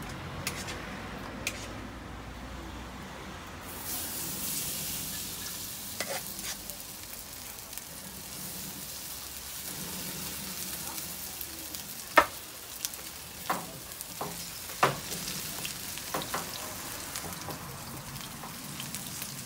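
Seafood pajeon batter sizzling in hot oil in a non-stick frying pan, the sizzle starting suddenly about four seconds in as the batter goes into the pan. Near the middle, a plastic ladle knocks against the pan several times as the batter is spread.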